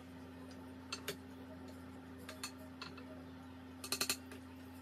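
A serving spoon lightly clinking and tapping against a metal pan and plate as cooked bulgur wheat is dished out: a few scattered taps, then a quick run of clicks near the end, over a steady low hum.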